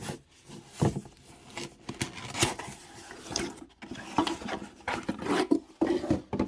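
Packaging being handled while a boxed Funko Pop figure is taken out: irregular rustles, scrapes and light knocks of cardboard and plastic.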